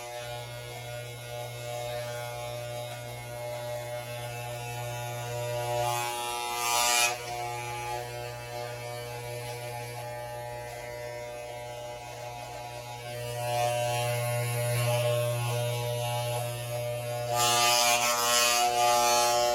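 Electric hair trimmer running with a steady buzz. It grows louder and hissier for about a second around six seconds in, and again for about two seconds near the end.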